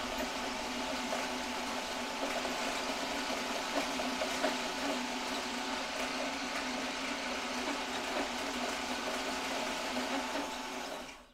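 Electric drive motors and gearboxes of a 1/6 scale Armortek M26 Pershing RC tank running its freshly fitted tracks, a steady mechanical hum. It cuts off suddenly near the end.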